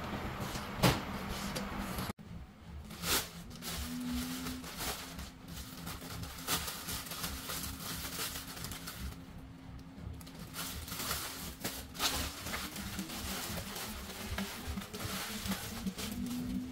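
Thin plastic carrier bag crinkling and rustling as hands open it and take out what is inside, with scattered small handling knocks.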